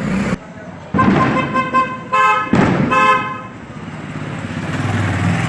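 A vehicle horn honking three times in short blasts over a low motor rumble.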